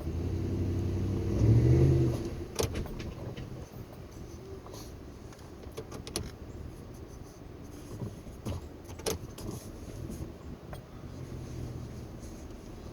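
Ford F-150's 5.0-litre V8 engine revving up hard for about two seconds while pulling on a stump with a tow strap, then dropping back to a low idle. Scattered sharp clicks and snaps follow.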